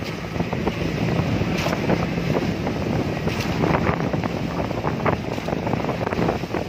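Motorised outrigger boat (bangka) under way: a steady engine drone under heavy wind buffeting the microphone, with water splashing irregularly off the outrigger float.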